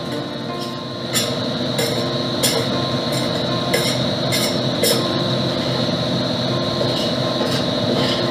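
Steady hum of commercial kitchen machinery, most likely the extractor hood fan, with sharp metal clinks of a utensil against a stockpot about every half-second to second, fewer in the middle and picking up again near the end.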